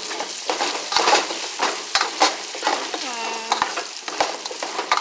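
Glazed chicken sizzling in a hot pan while it is stirred, the utensil scraping and knocking against the pan many times. A short tone slides down in pitch about three seconds in.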